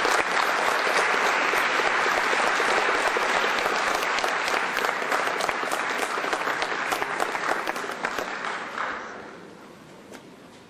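Audience applauding: dense clapping that tails off about nine seconds in.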